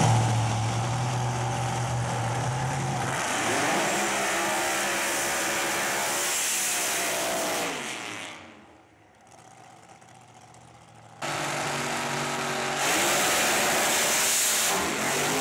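Engine of a supercharged doorslammer drag car running at high revs through a burnout, its pitch rising and falling. The sound fades away about eight seconds in, then cuts back in loud about three seconds later as the engine revs again.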